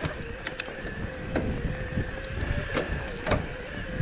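Mountain bike rolling along a trail: a steady hum over wind and rolling noise, broken by several sharp clicks and rattles.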